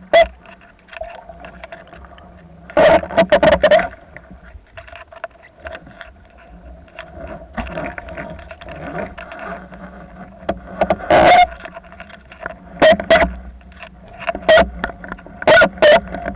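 Underwater sound picked up by a camera in its housing: a steady low hum with short, loud bursts of noise every few seconds.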